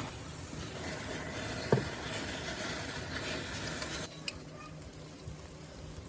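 Lobster tails sizzling as they cook, a steady hiss that drops away about four seconds in, followed by a single click.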